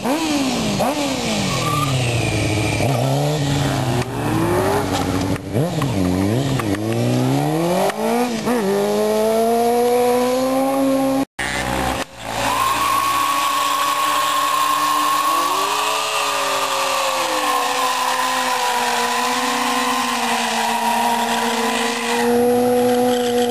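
Sport motorcycle engines revving up and down repeatedly as the bikes ride through a bend. From about halfway, an engine is held at high revs almost steadily while the rear tyre spins and screeches in a smoking burnout.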